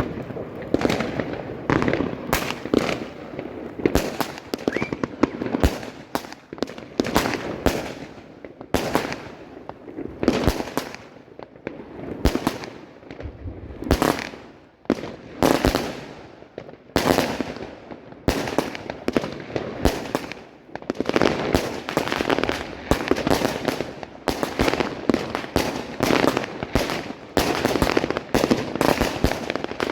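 New Year fireworks going off in a dense, continuous barrage: many sharp bangs and pops, several a second, with crackling between them.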